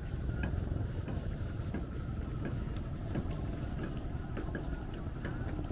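Harbour ambience at a wharf of moored outrigger boats: a steady low rumble with scattered light clicks and knocks.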